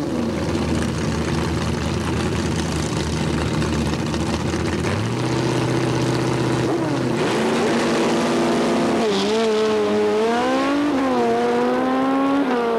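Drag motorcycle and a car running at the start line, revs raised about five seconds in, then launching and accelerating down the drag strip. The engine pitch climbs and falls back several times as they shift through the gears.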